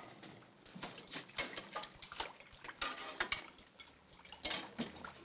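Scattered clatter of pots, pans and utensils being handled at a kitchen stove, mixed with a few footsteps: a string of short, irregular knocks and clicks.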